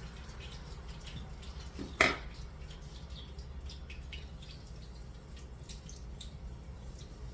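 Chicken nuggets cooking in a pan, with faint scattered crackling and ticking over a low steady hum. One sharp knock comes about two seconds in.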